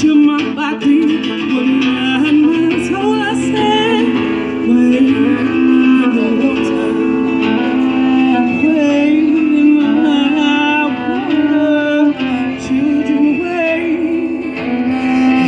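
Live music: a voice singing with wavering, gliding notes over guitar accompaniment.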